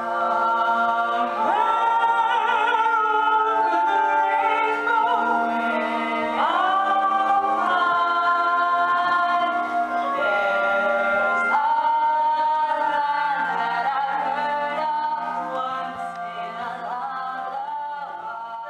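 Several voices singing together in long held notes, fading out near the end.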